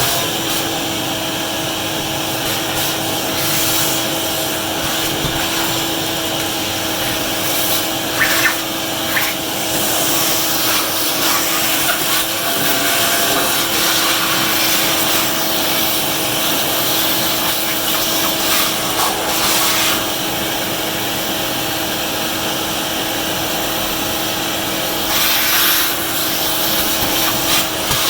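Vacuum cleaner running with a steady motor whine, cleaning up after drilling, with a few short louder rushes about eight seconds in and near the end.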